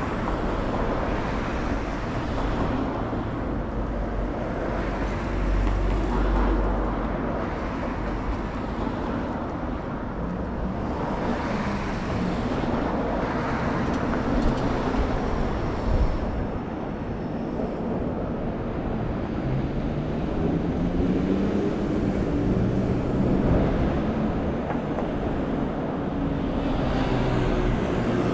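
City street traffic: road vehicles passing through an intersection, with a steady rumble of tyres and engines. A brief thump sounds just past halfway, and in the last several seconds a passing engine's note rises and falls.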